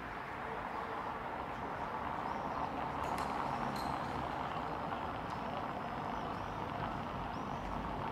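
Steady distant traffic noise of a city street, with a few faint short high chirps and a couple of light clicks.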